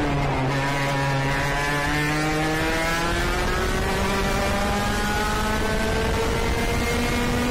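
IAME KA100 two-stroke kart engine at racing speed. Its pitch drops briefly at the start as the kart slows, then rises steadily for several seconds under hard acceleration.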